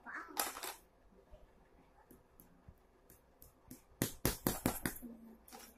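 Colored pencils clicking against each other and the plastic pencil case as they are handled: a few faint ticks, then a quick run of sharp clicks and taps about four seconds in.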